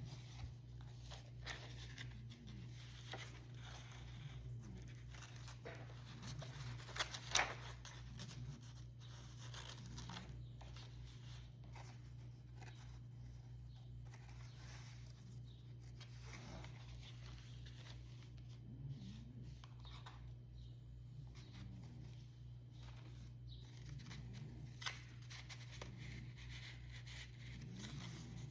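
Soft paper rustling and small clicks as the pages of a notebook are handled and turned, with one sharper click about seven seconds in, over a steady low hum.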